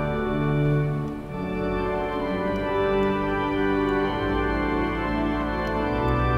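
Organ playing a slow hymn in held, sustained chords that change every second or so, with deep bass notes coming in about four seconds in.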